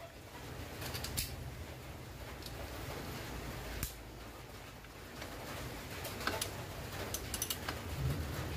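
Scattered metal clicks of hand tools being handled, then a short run of quick ratchet-wrench clicks near the end as the ratchet works a bolt on the scooter's rear wheel, over a steady low hum.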